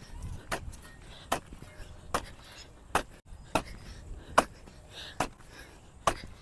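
Fawda (Indian digging hoe) blade striking and digging into loose soil, a sharp thud about every 0.8 s, eight strokes in a steady rhythm.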